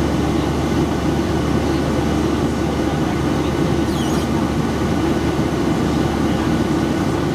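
Steady cabin drone of a Boeing 737-700 climbing out after takeoff, heard from a window seat over the wing: the CFM56 turbofans and the rush of air past the fuselage blend into one even, low roar.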